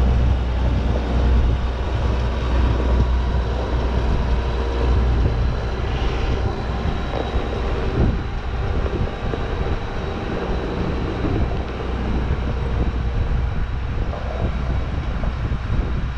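A large farm machine's engine running steadily with a deep low rumble and a thin, steady high whine over it.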